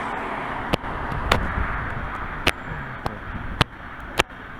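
Footsteps on a hard surface, sharp clicking steps at a walking pace of nearly two a second, over steady outdoor background noise.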